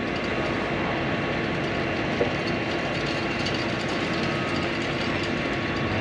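Heavy truck engines running steadily with a constant hum: a truck-mounted concrete boom pump working during a concrete pour, with a concrete mixer truck feeding it.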